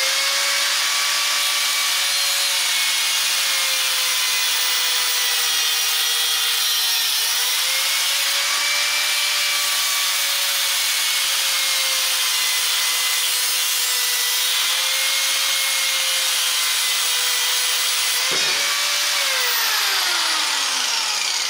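Angle grinder with a thin metal-cutting disc cutting through a steel motorcycle drive-chain link: a steady, noisy high whine over the hiss of the cut, dipping briefly in pitch twice. Near the end it is switched off and the whine falls away as the disc spins down.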